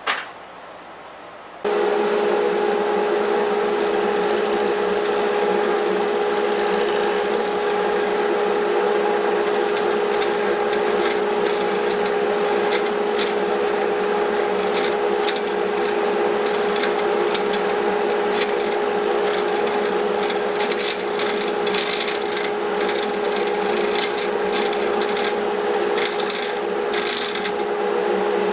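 Wood lathe starting up about two seconds in, its motor humming steadily while a hollowing tool cuts inside a wet pecan hollow form with a continuous rough scraping. The scraping turns choppier and more uneven in the second half.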